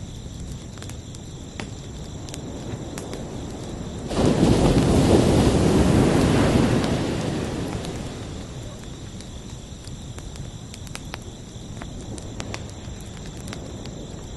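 Ocean waves: one wave breaks about four seconds in and washes out over the next few seconds, and the next starts building near the end. Crickets trill steadily and high underneath.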